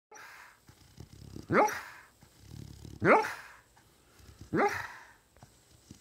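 Sleeping beagle barking in its sleep while dreaming: three short, muffled barks about a second and a half apart, each rising in pitch, with soft breaths between them.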